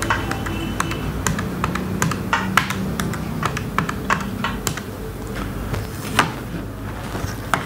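Keys of a desk calculator being pressed, a run of short, irregular clicks, as a sum is totted up.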